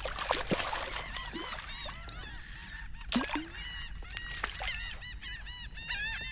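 A small hooked speckled trout splashing at the surface a few times on the line. Many birds call in the background with short, repeated high chirps that come thicker toward the end.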